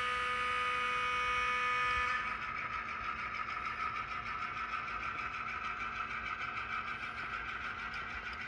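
HO-scale model freight cars and caboose rolling along the track, a steady whirring rumble that slowly fades as the train moves away. A set of steady whining tones stops about two seconds in.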